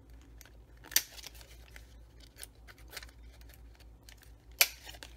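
Handheld corner rounder punch cutting through patterned cardstock, two sharp clicks: one about a second in and one near the end, each a corner being rounded.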